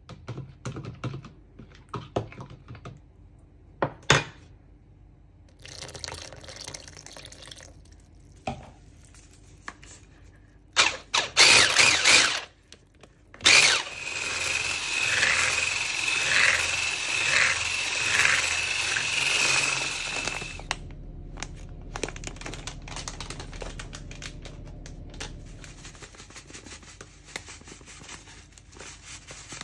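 Electric hand mixer with wire whisks beating cake batter in a bowl: a steady motor whine with a high tone for about seven seconds in the middle. Before it come scattered clicks and knocks of utensils against a jug and bowl, and after it a quieter rustle.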